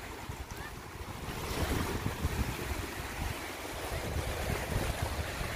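Small waves washing up on a sandy shore, with wind rumbling on the microphone. The wash grows a little louder about a second and a half in.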